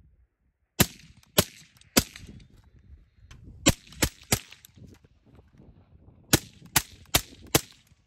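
Suppressed short-barrelled AR-15 rifle firing about ten rounds in three quick strings: three shots, three more, then four, each a sharp crack with a brief low tail.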